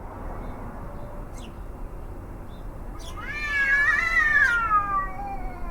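A cat howling: one long, loud, wavering howl starting about three seconds in that slides down in pitch at the end, over a steady low background rumble.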